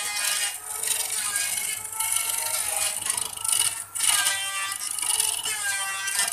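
A voice singing in long, gliding phrases with background music, over a steady hiss and low hum that fits a wood lathe spinning a blank while a chisel cuts it.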